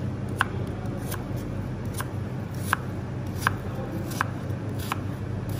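Kitchen knife slicing a peeled apple on a plastic cutting board: a sharp knock each time the blade meets the board, about one stroke every three-quarters of a second.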